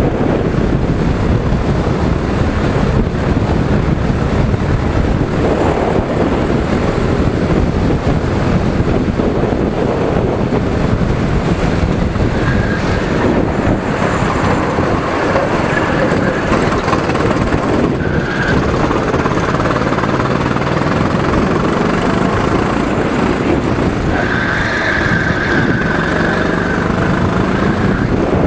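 Go-kart engine running at speed, heard from onboard under heavy wind noise on the microphone. Short high tones come through now and then in the second half, the longest near the end.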